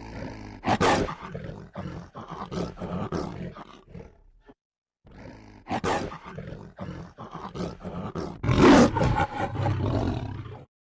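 A lion roaring and snarling in two rough bouts, split by a brief silence a little before halfway. The loudest roars come about a second in and again near the end.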